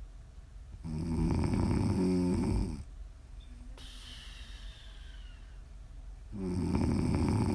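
A woman snoring in her sleep: two long, rattling snores about five seconds apart, with quieter breathing and a faint falling whistle between them.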